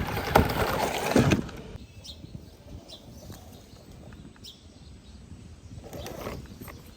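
Radio-controlled off-road toy car running over rough ground close by, loud with knocks for about a second and a half, then suddenly much quieter, leaving only faint scattered clicks.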